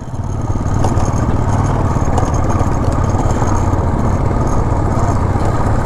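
Royal Enfield Classic 350's single-cylinder engine running steadily under way, heard from the bike itself with a rapid, even thump. The sound builds over the first second.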